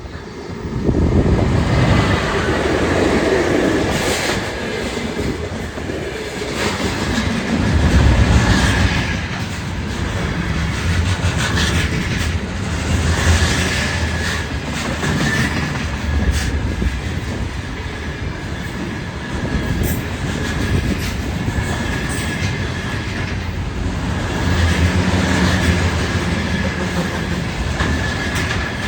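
Container freight train behind a 2ES6 electric locomotive passing close by: the rumble and clatter of wheels over the rails comes in loudly about a second in and continues, with a thin wheel squeal running through it.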